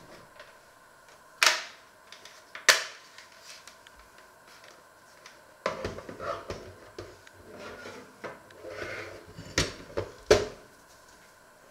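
Sharp knocks and handling clatter of a plastic-framed digital clock being picked up, turned in the hands and set down on a wooden cutting board. There are two loud knocks about a second apart early on, then a stretch of rubbing and bumping that ends with two more knocks as the clock comes to rest.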